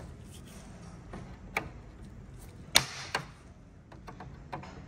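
Cutting pliers snipping through the plastic honeycomb connections of a grille: a few sharp snaps, the loudest a little past halfway.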